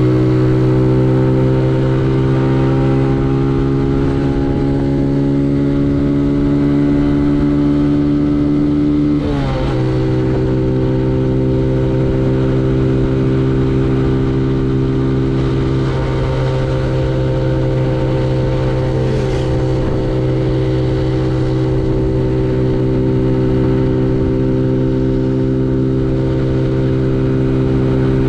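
Benelli Leoncino 125 motorcycle engine running at steady revs, its pitch drifting slightly down, with a quick dip and recovery in revs about nine seconds in.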